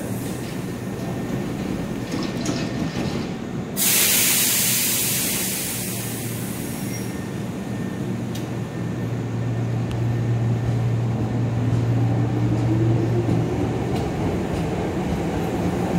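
Hankyu 5300-series electric train at an underground platform. About four seconds in, a sudden loud burst of air hiss lasts about three seconds. A steady hum follows, then a rising motor whine as the train pulls away.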